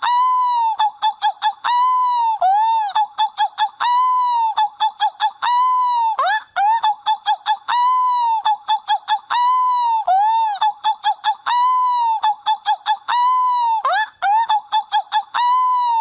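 Seagull calls repeating over and over, one drawn-out arching call then a quick run of short yelping notes, the same pattern returning about every two seconds.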